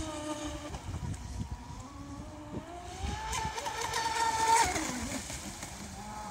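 Whine of an RC racing boat's water-cooled brushless inrunner motor (Turnigy XK3674, 2200 kV) as the boat runs on the water. The pitch dips, then rises steadily to its loudest about four and a half seconds in before the throttle comes off and it falls away.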